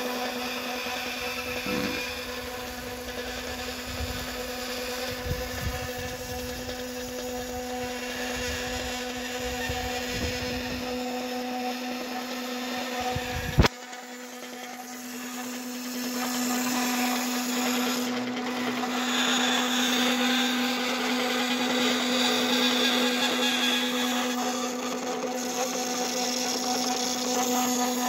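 Small electric motor of a homemade PET filament puller running steadily, turning the 3D-printed gear and spool that wind up the filament; a steady hum with a whine in it. One sharp click about halfway through.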